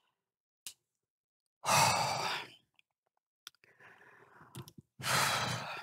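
A woman sighing twice, two long breathy exhales about two seconds and five seconds in, with faint rustling between them.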